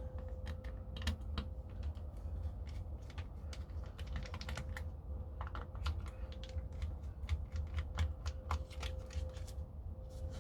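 A small screwdriver undoing the screws of an airsoft hi-cap magazine shell: irregular light clicks and taps of the tool on the screw heads and the magazine, over a steady faint hum.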